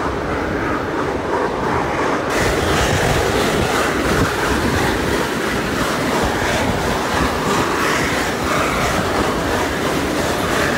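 A steam-hauled passenger train running, heard from an open carriage window: steady wheel-on-rail noise with clatter over the rail joints, mixed with wind on the microphone. The sound becomes brighter and fuller about two seconds in.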